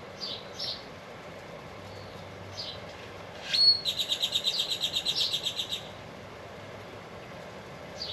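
Birds chirping, with one bird about halfway in giving a short whistled note and then a loud rapid trill of about ten notes a second that lasts about two seconds.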